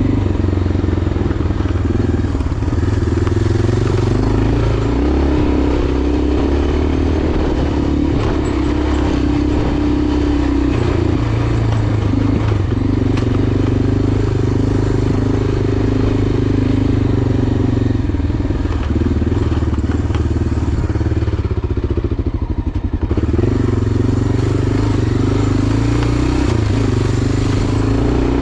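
Enduro motorcycle engine running under way, its pitch stepping up and down with throttle and gear changes. It eases off briefly about two-thirds of the way through, then picks up again.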